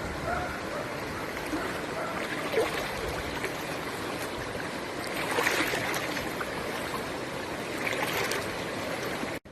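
Floodwater rushing and flowing steadily.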